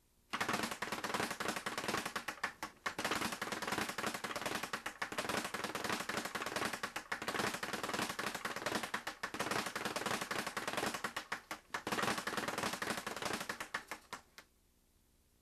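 Leather speed bag punched in a fast combination, rattling rapidly against the wooden rebound board in a continuous run of sharp impacts. It starts just after the beginning, eases briefly near 3 s and again near 11.5 s, and stops about a second before the end.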